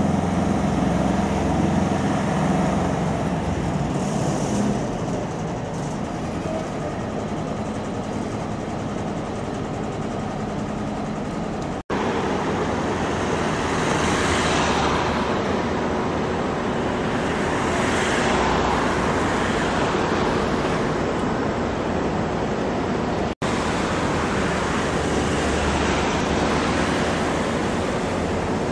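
Road traffic: cars passing one after another over a steady rumble, with two louder pass-bys in the middle. The sound breaks off for a split second twice.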